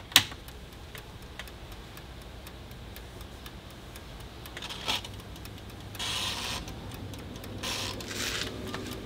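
A sharp click just after the start, then faint, regular ticking with a few short rustles over a low steady hum, as an air fryer is switched on and set up on an inverter. A faint steady tone comes in near the end.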